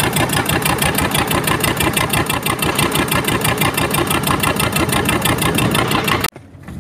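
Fishing boat's engine running loud with a fast, even pulse, cut off suddenly near the end.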